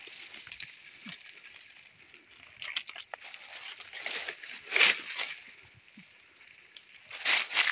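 Leaves and stems of forest undergrowth rustling in short bursts as they are pushed aside and handled while shoots are picked, loudest about five seconds in and again near the end.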